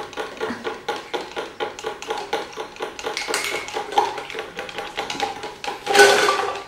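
A spoon stirring milk formula in a baby bottle, clinking against the inside in quick, even taps at about five a second. Near the end there is a louder, noisier sound lasting about half a second.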